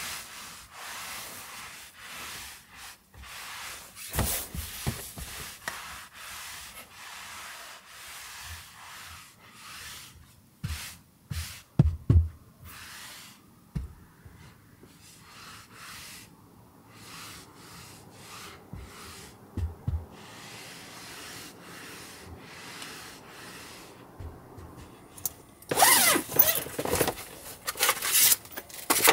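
Hands rubbing and smoothing a fabric-covered cushion, a soft swishing rub broken by a few knocks and thumps. Near the end comes a louder burst of rustling and clatter as things are handled and set down on a wooden table.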